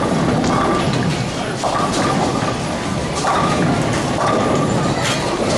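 Bowling alley din: balls rolling along the wooden lanes and the machinery of the alley, with a few sharp clatters of pins.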